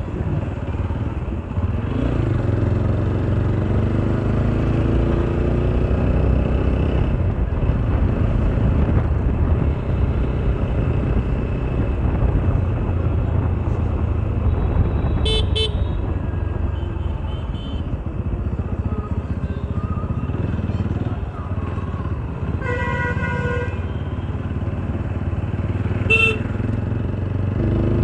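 Motorcycle engine running steadily while riding, its pitch rising a couple of seconds in as it accelerates. Vehicle horns sound over it: a short double beep about halfway through, a longer horn blast a few seconds later, and one brief beep near the end.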